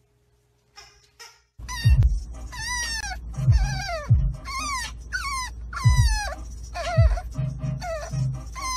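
French bulldog puppy whining, a string of high-pitched cries that each fall in pitch, about one a second, over the steady low rumble of a car cabin on the road.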